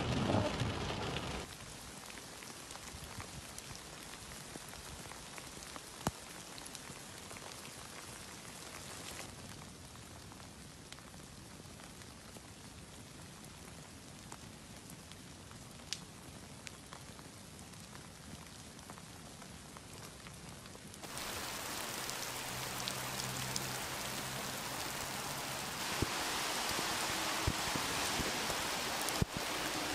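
Steady rain falling, heard as an even hiss, loudest in the first second or so where it beats on a car windscreen, then quieter, and louder again from about 21 seconds in.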